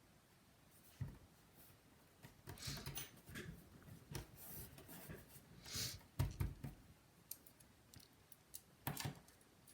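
Faint, irregular small clicks and short scrapes of laptop parts and screws being handled with a precision screwdriver during reassembly.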